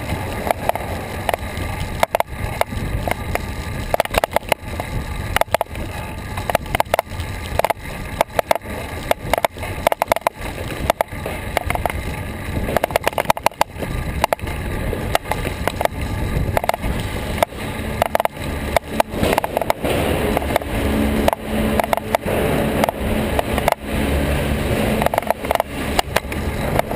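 Road rattle and rolling noise from a bicycle-mounted action camera riding over pavement: a steady low rumble with irregular clicks and knocks as the bike and its camera mount jolt over the road surface.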